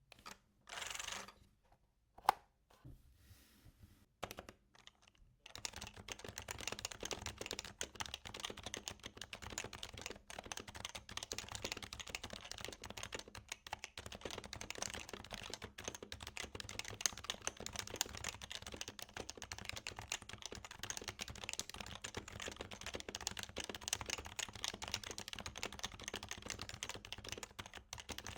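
Fast, continuous typing on a 2014 HHKB Pro 2 keyboard with Topre rubber-dome switches, its domes aged. A few scattered clicks and a brief rustle come before the steady typing starts about five seconds in.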